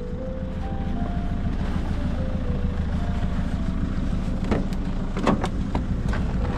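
Volvo car idling steadily. A few sharp clicks from the door handle and latch a little past the middle as the driver's door is opened.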